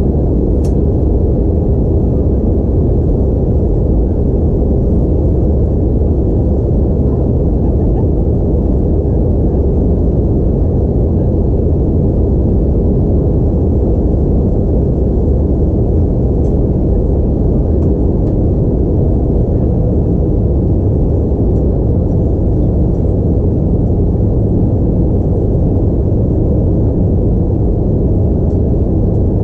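Steady low cabin rumble inside an Airbus A320-232 airliner in descent: airflow over the fuselage mixed with the hum of its IAE V2500 turbofan engines, heard from a window seat.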